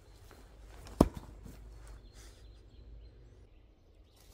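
A thrown steel stone chisel strikes a wooden stump target with one sharp knock about a second in, over faint outdoor background noise.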